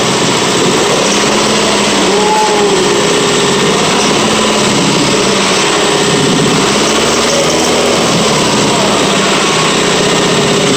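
Hyundai EF Sonata DOHC 16-valve gasoline engine running steadily, heard up close.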